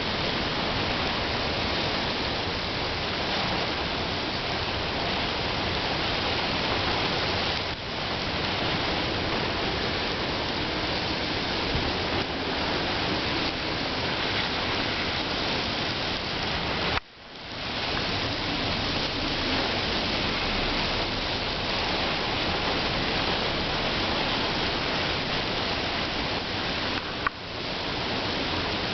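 Dense, steady rush of hurricane storm noise, wind and surf together. The level dips sharply and briefly a few times, most deeply about 17 seconds in, then comes back.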